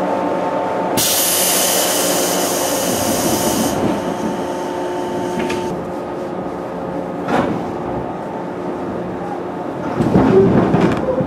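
415 series electric train at a station: a steady equipment hum, then about a second in a strong hiss of compressed air lasting about three seconds as the doors close. The train then pulls away, with a click, a knock, and a louder clatter from the wheels near the end.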